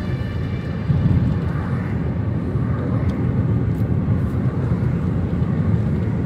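Steady low rumble of a moving car's tyres and engine heard from inside the cabin while driving on an asphalt highway.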